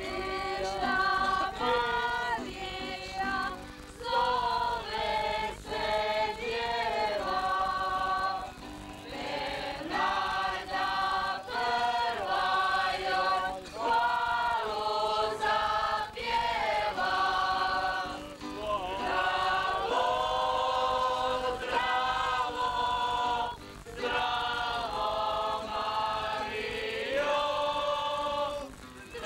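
A mixed group of men and women singing a song together in chorus, accompanied by an acoustic guitar, in phrases broken by short pauses for breath.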